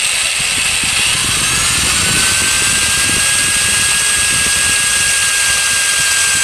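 Cordless drill running steadily with a small bit boring into hard resin, its motor whine rising slightly in pitch over the first second or so and then holding steady.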